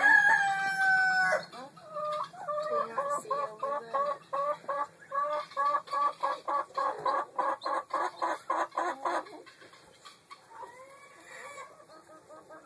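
Domestic chickens calling: a long drawn-out call at the start, then a rapid run of short clucking notes, about three or four a second, for some seven seconds, and fainter calls near the end.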